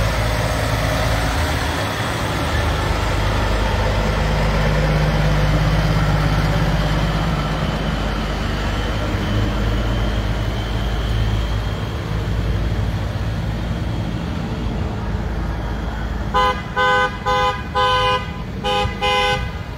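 Tow trucks passing in a line with heavy engines running, then a vehicle horn honked in about six short blasts near the end.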